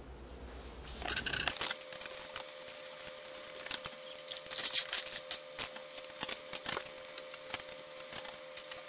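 Small metal clicks and scrapes of bolts, nuts and washers being handled and fitted as a sewing-table foot pedal is fastened to the table frame's steel crossbar: irregular clicks, busiest about halfway through.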